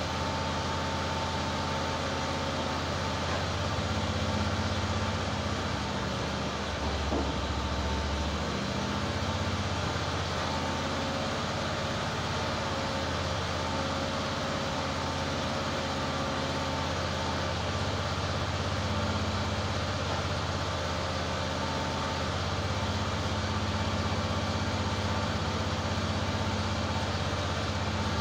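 Gasoline engine on an EZ Boardwalk 40 bandsaw mill's head running steadily while the saw is not cutting.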